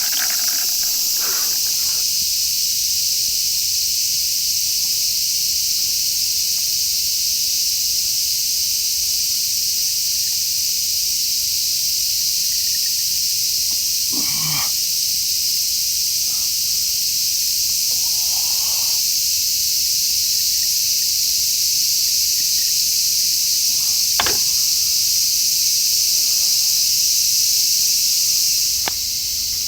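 Dense, steady high-pitched insect chorus, with a few short knocks and clatters, the sharpest about two-thirds of the way through. The chorus drops off abruptly near the end.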